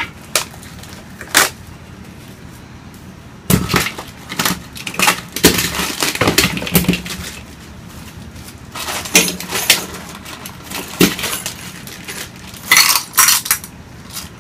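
Chair parts and small metal hardware being handled: irregular knocks, clinks and rattles coming in clusters, with brief quiet gaps between them.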